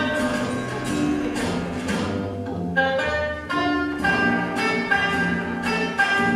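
Instrumental music with a steady pulse of notes, about two a second.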